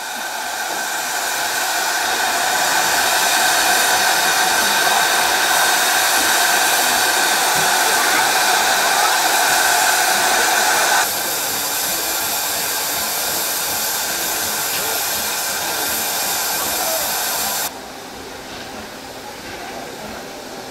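Steam locomotive hissing loudly and steadily as steam escapes. The hiss thins suddenly about eleven seconds in and drops to a quieter hiss near the end.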